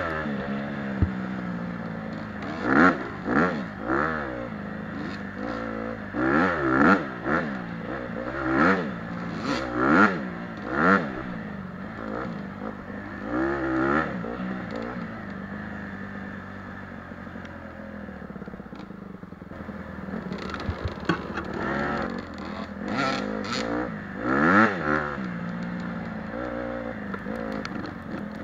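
Dirt bike engine revving up and falling back again and again as it is ridden along a trail, a rise and fall every second or two, with a calmer, steadier stretch past the middle before the revs pick up again.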